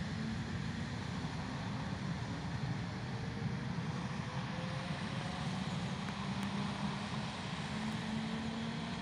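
ED4M electric multiple unit pulling away from a platform: a steady low rumble of the running train, with a faint, slightly rising whine of its traction motors.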